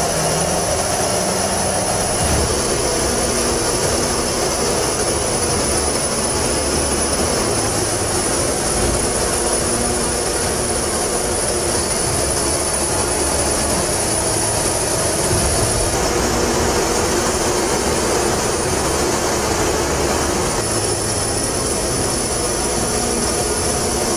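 Steady jet engine noise: a dense, even rush with a high, steady whine on top. The whine drops away for a few seconds past the middle, then returns.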